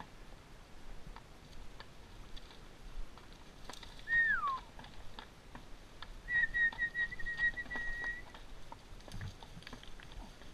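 A man whistling to call his cattle dogs: a short falling whistle about four seconds in, then a longer steady, warbling whistle about two seconds later, over faint clicks of a horse's hooves on stony ground.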